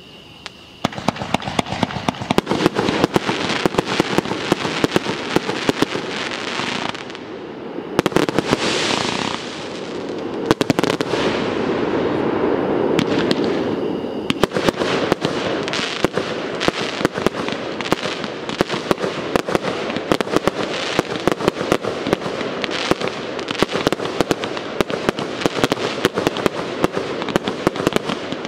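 Aerial fireworks from a consumer show going off in a rapid, continuous barrage of bangs and crackles that starts about a second in, with a short hissing stretch about eight seconds in.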